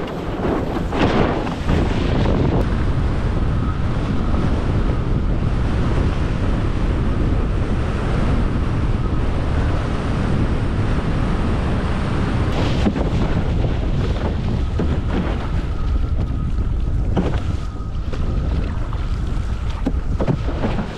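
Wind buffeting the camera's microphone with water rushing past a windfoil board, loud and steady, with a few splashes in the first couple of seconds.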